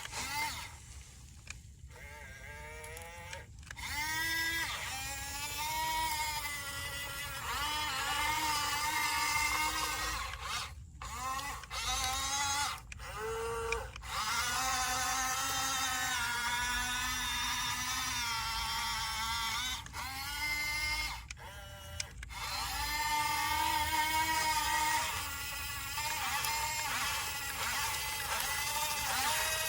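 Small electric drive motors of a radio-controlled toy bulldozer whining as it is driven, the pitch rising and falling with the throttle and cutting out briefly several times as it stops and starts.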